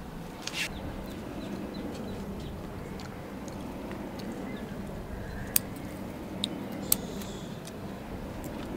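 Steady background noise with a faint low hum, and three sharp clicks close together in the second half.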